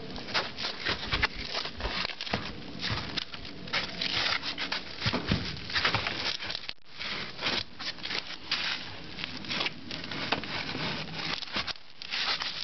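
Rocks and loose gravel scraping and clattering as stones are pulled and shifted by gloved hands, in many irregular knocks and scrapes.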